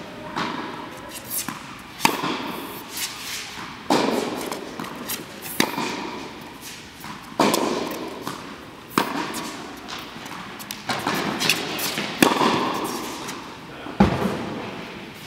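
Tennis ball struck back and forth in a baseline rally with poly-strung Angell TC95 rackets: a string of sharp pops and thuds of racket hits and bounces, roughly every two seconds, each ringing briefly in a large indoor court hall.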